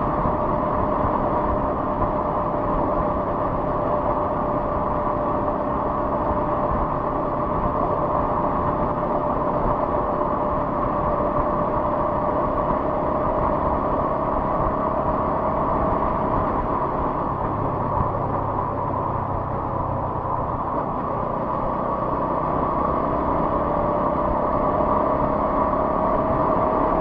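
Motorcycle ridden at a steady speed: steady engine drone mixed with wind and road noise, with a hum that rises slightly in pitch near the end.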